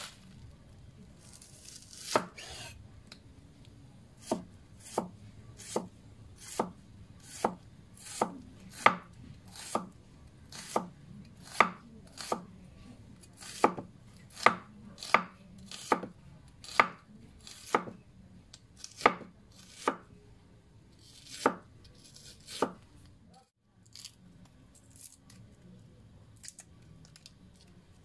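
Cleaver slicing a red onion on a thick wooden chopping board: a steady series of sharp knocks, about one a second, stopping a few seconds before the end.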